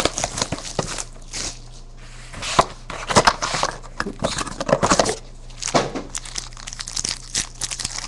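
Plastic wrapping crinkling and tearing as trading card boxes are opened by hand, mixed with many sharp clicks and taps of handled cardboard and cards.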